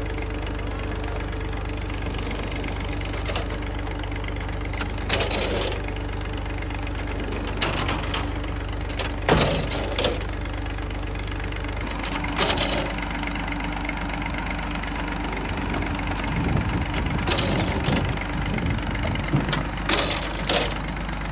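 Massey Ferguson tractor's diesel engine running steadily while it drives a brick-making machine, with sharp metal clanks every few seconds as the hand-worked cutting lever and frame come down on the clay.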